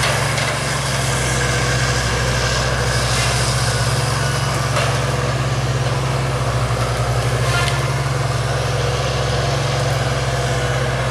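Large engine of heavy machinery running steadily: a low, even rumble with a fast regular pulse.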